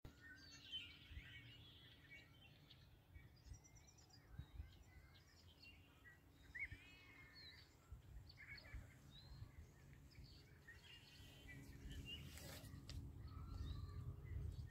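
Faint chirps and calls of several small birds, scattered through the whole stretch, over a low rumble that grows louder near the end.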